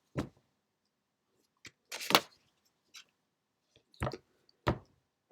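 Six or so short, soft clicks and taps, scattered irregularly with near silence between them.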